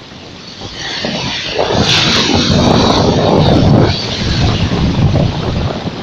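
Black Sea waves breaking on a pebble beach: the surf swells up about a second in into a loud rushing wash over the shingle, easing briefly near four seconds before the next surge.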